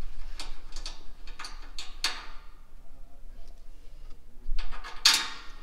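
Hand ratchet wrench clicking in short, irregular runs as a bolt under a truck's front end is worked loose, with a louder rasp about five seconds in.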